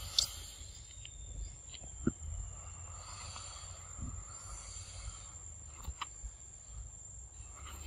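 Insects chirring in one steady high tone, over a low rumble, with a few light clicks, at about two seconds in and again about six seconds in.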